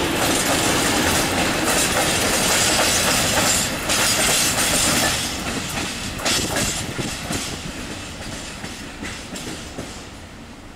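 Freight train of open wagons behind a T448p diesel shunting locomotive rolling away, wheels clacking over the rail joints. The sound fades steadily through the second half as the train draws off.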